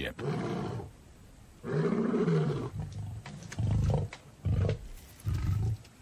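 Male lion roaring: two long roars, then three short, deeper grunts. It is a territorial roar, announcing the pride male's location and ownership of the territory to neighbouring prides.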